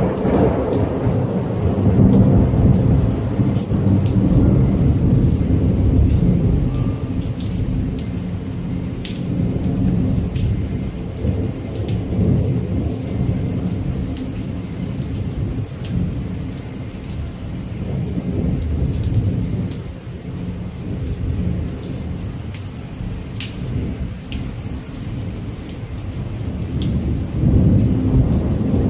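Steady rain with long rolling thunder, a deep rumble that swells and fades several times, loudest near the start and again near the end, with scattered sharp ticks of drops over it.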